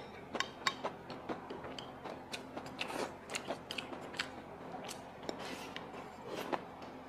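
Close-up chewing and crunching of stir-fried pork intestines with pickled cabbage and crisp bamboo shoots, with sharp clicks of chopsticks against a ceramic bowl.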